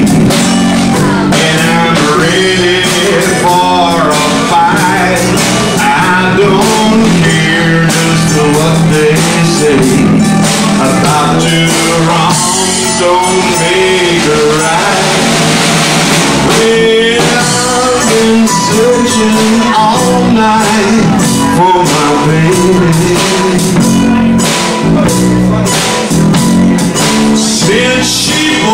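Live band playing a slow, sad song on drum kit, electric bass and ukulele, with a man singing lead into a hand-held microphone.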